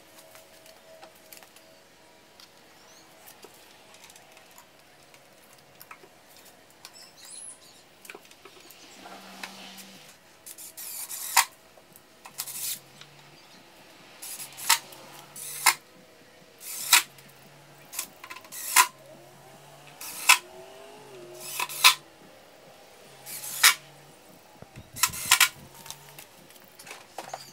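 A power drill driving the mounting screws of a 12-inch subwoofer into its carpeted box, in about a dozen short runs starting about ten seconds in.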